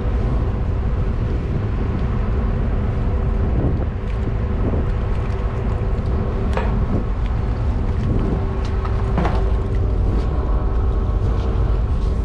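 Steady low rumble of a ship under way, its engines and machinery droning with a steady hum, with a couple of light knocks partway through.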